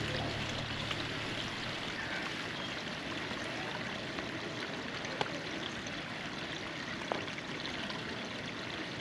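Steady hiss of rain falling, with water running and trickling. Two sharp ticks stand out, about five and seven seconds in.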